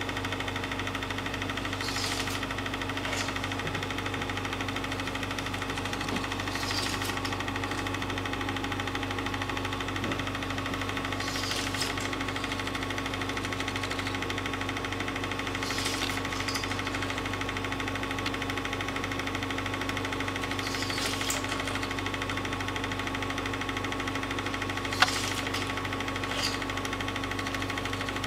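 Film projector running: a steady motor hum with the even clatter of the film mechanism, and a single sharp click near the end.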